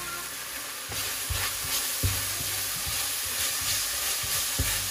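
Vegetables and sauces sizzling in hot oil in a pan while they are stirred, with a few knocks of the utensil against the pan.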